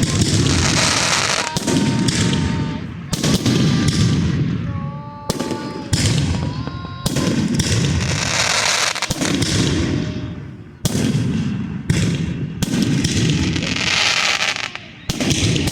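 Fireworks going off in a rapid barrage: a sharp bang every second or two, each trailing off into a long crackle.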